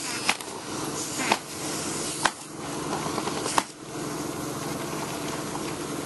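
Steady fan-like mechanical hum with four short sharp clicks in the first four seconds, about a second apart.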